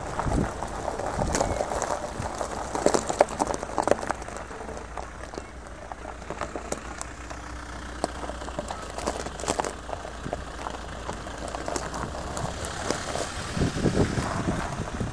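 Cars moving slowly on gravel: a low steady engine hum with irregular gravel crunching throughout.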